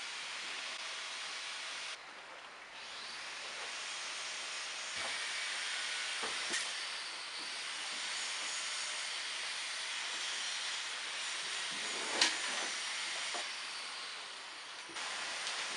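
Steady hiss, with a few faint clicks and knocks.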